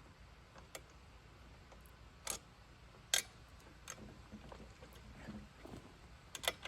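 Scattered metal clicks and knocks from an Alaskan chainsaw mill's height adjustment being loosened and slid by hand. The two clearest come about two and three seconds in, with a couple more near the end.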